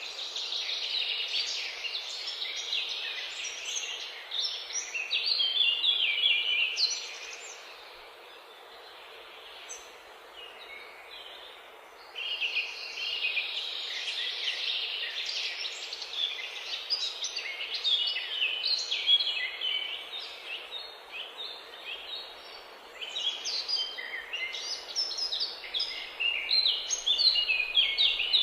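Songbirds singing: many quick chirps and trills overlapping, over a faint hiss, dying down for a few seconds about a third of the way through, then resuming.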